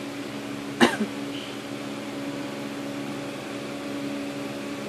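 A steady machine hum, like an appliance or fan running, with one sharp click a little under a second in.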